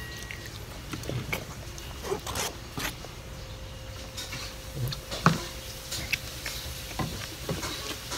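Milk tea being sipped through a long plastic straw from a plastic gallon bottle, with scattered short squeaks and clicks.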